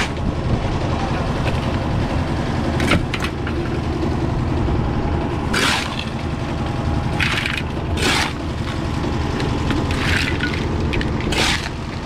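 A steel shovel scraping into wet concrete mix and tipping it into an iron pan, about seven short gritty scrapes a second or two apart, over the steady low running of a concrete mixer's engine.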